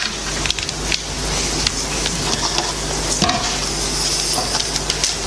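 Handling noise from a presenter connecting a borrowed computer mouse to his laptop: a crackling rustle with many small scattered clicks, over a steady low electrical hum.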